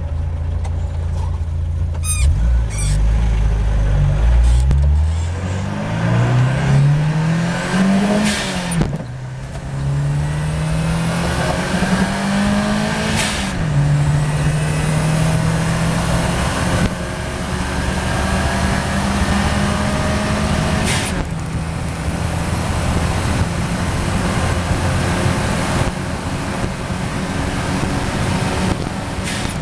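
Turbocharged car engine revving up twice with rising pitch, then running steadily. The blow-off valve vents with short sharp hisses about three times as the throttle closes.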